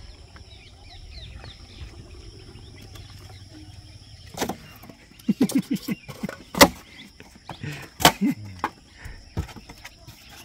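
Thermocol (expanded polystyrene) sheets being handled and forced into a plastic tub: short squeaks, creaks and sharp snaps in a cluster from about four seconds in, loudest about six and a half and eight seconds in. Before that there is only a faint low steady noise.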